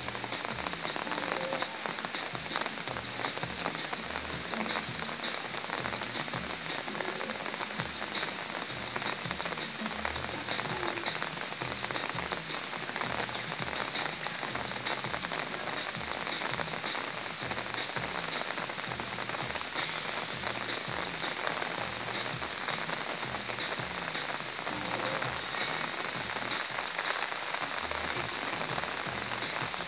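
Steady rain falling and pattering on surfaces, a dense even hiss of drops.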